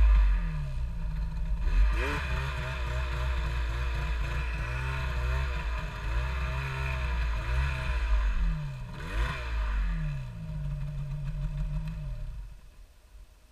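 Snowmobile engine revving up and down repeatedly as the sled is ridden through deep powder, then falling off to a low level near the end as the throttle is let off.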